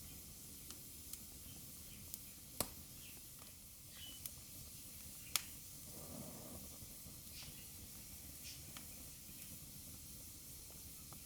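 Wood fire burning in a fireplace: a steady soft hiss with sharp crackles and pops scattered through it. Two snaps stand out louder, about two and a half and five and a half seconds in, and a brief soft whoosh of flame follows just after six seconds.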